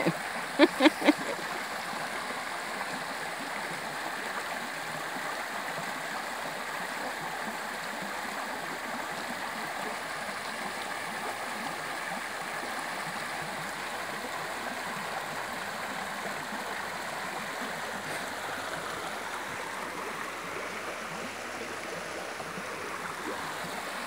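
Shallow spring-fed river running over rocks at low water, a steady rushing of small riffles and cascades. Three short, loud sounds break in about a second in.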